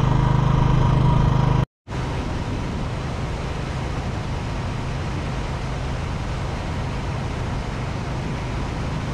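Motorcycle running steadily at road speed, with wind and road noise. About two seconds in, the sound drops out briefly. After that, wind and road noise carry over a fainter engine hum.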